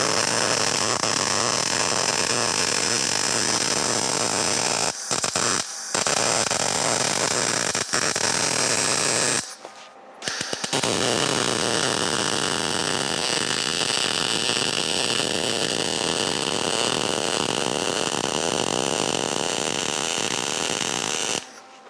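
MIG welder arc crackling and buzzing in two long weld runs with a short stop about halfway through, run with a long arc.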